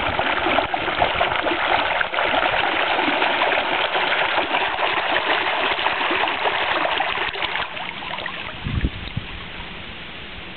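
Water bubbling and splashing at the surface as a homemade PVC-frame ROV dives, air bubbles rising through the churned water. The bubbling dies away about seven and a half seconds in, and a short low thump follows a second later.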